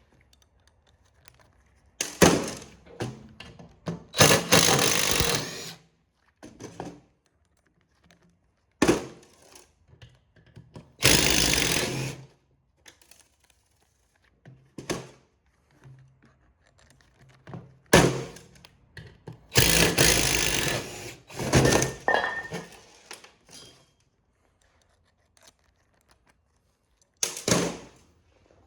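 Metal parts of a t-shirt printer being worked loose and handled during scrapping: scattered thunks and knocks, with several noisy bursts of a second or so between quiet gaps.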